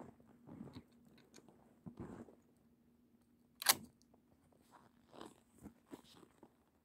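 Handling noises at a rifle on a shooting bench: rustling and crunching with a few small clicks, and one sharp click about three and a half seconds in.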